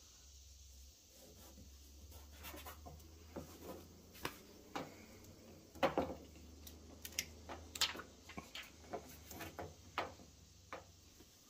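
Light handling noises while an adhesive emblem is set up for fitting: scattered small clicks, taps and rubs, the sharpest about six and eight seconds in, over a faint low hum.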